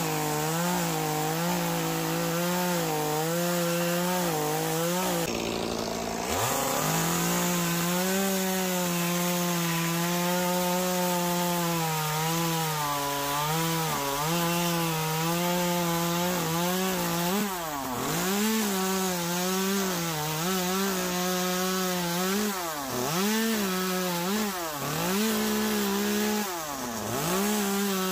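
Echo 2511 top-handle two-stroke carving chainsaw with an 8-inch carving bar, running at high revs while cutting into wood. Its engine pitch drops and recovers several times: deeply about six seconds in, and in quick repeated dips through the second half.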